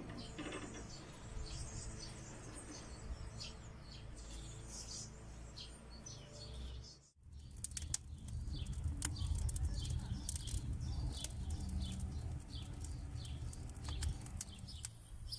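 Small birds chirping throughout. After a cut about halfway, a wood fire of split logs is burning, with a low rumble and many sharp crackles and pops over the birdsong.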